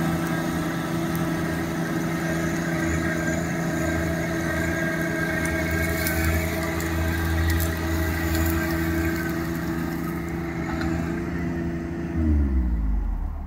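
John Deere 1025R compact tractor's three-cylinder diesel running steadily, then winding down and stopping about twelve seconds in as it is shut off.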